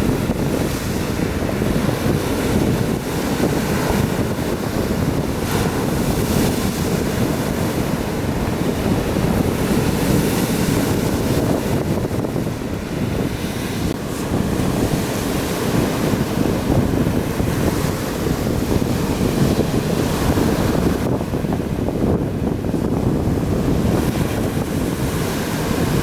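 Sea surf washing onto the beach, a steady rushing with wind buffeting the microphone.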